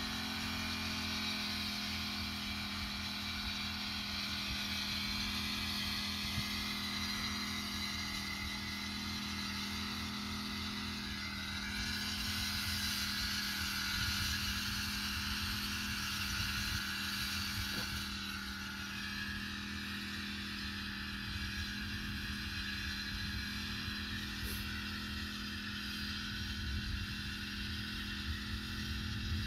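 Small engine of a backpack motorized mist-blower sprayer running steadily at constant speed while spraying, with wind rumble on the microphone.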